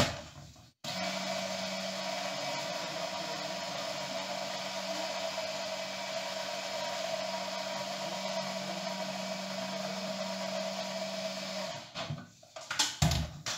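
Small electric mini chopper running steadily, blending a creamy frozen-banana mixture, with a steady hum and whir; it starts about a second in and stops near the end, followed by a few light knocks as the chopper is handled.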